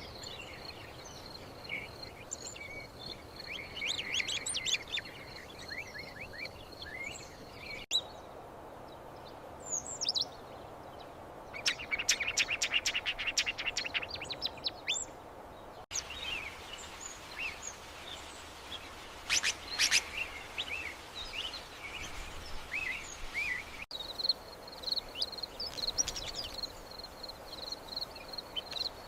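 Songbirds chirping and whistling, in several short segments that change abruptly about every eight seconds. A steady high-pitched note runs under the first and last segments, and a fast run of repeated notes comes in the middle.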